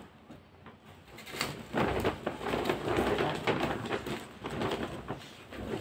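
Clothing and a striped shopping bag rustling and crinkling as they are handled and rummaged through, starting about two seconds in.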